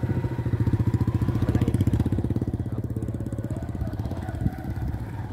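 Small motorcycle engine running with a fast, even pulse while riding along a dirt track. It grows louder in the first couple of seconds under more throttle, then eases off a little. A single sharp knock comes about four and a half seconds in.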